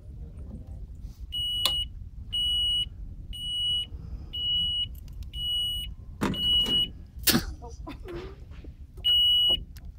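Motorized shopping cart's reverse warning beeper: a high beep about once a second, six in a row, then one more near the end. A sharp knock comes between the early beeps and another, louder one about seven seconds in.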